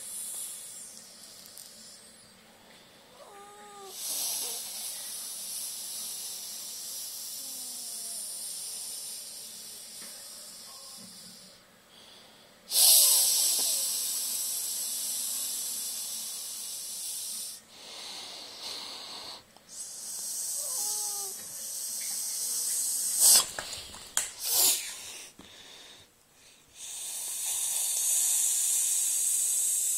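A person hissing like a snake, in long drawn-out hisses of several seconds each with short pauses between them; the loudest begins abruptly about halfway through. A short cat cry is heard twice, and a few knocks come near the end.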